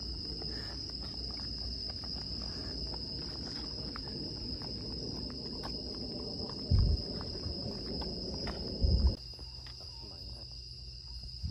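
Steady high-pitched chorus of night insects, with low noise underneath and two dull low thumps about seven and nine seconds in; the low noise drops away after the second thump.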